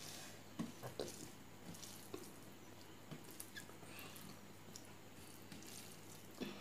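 Faint wet squishes and small clicks of fingers mixing rice with curry on a steel plate.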